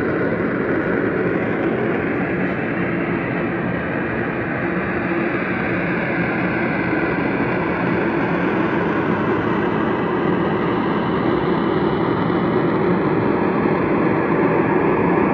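Loud, steady hissing drone with a faint, slowly drifting tone above it, swelling slightly near the end. It is the unexplained sound likened to a pressure-release valve letting off or a spaceship taking off or landing, which some put down to an atmospheric "soundquake".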